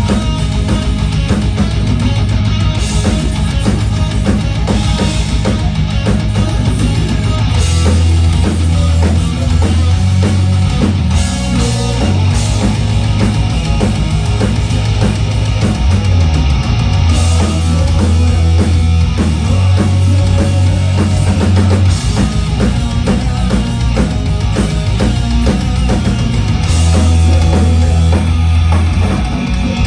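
Rock band playing loud and continuous through the venue's PA at sound check: a drum kit, distorted electric guitar and a heavy bass line that shifts notes every few seconds.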